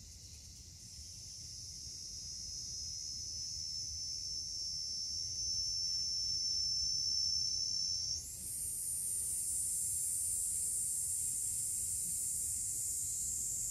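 Insects shrilling steadily in a high-pitched drone that swells over the first few seconds; about eight seconds in the pitch jumps higher and holds there.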